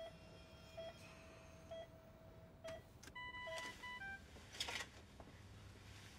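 Faint electronic beeping from a hospital monitor, a beep about once a second over a steady tone, then a short run of higher electronic tones that step down in pitch. A brief burst of noise follows about two-thirds of the way in.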